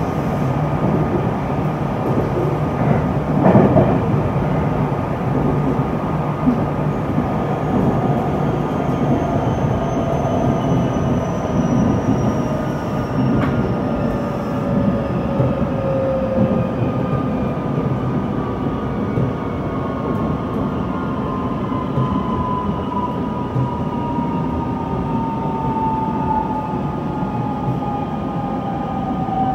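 Toyo IGBT-VVVF inverter and traction motors of a JR West 227 series 500 train whining over wheel and rail noise, the tones falling slowly in pitch as the train brakes for a station stop. A brief knock about three and a half seconds in.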